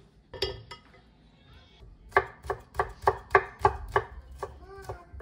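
Chef's knife chopping garlic on a wooden cutting board: a run of sharp knocks, about three a second, starting about two seconds in and getting lighter near the end. A couple of clicks come shortly after the start.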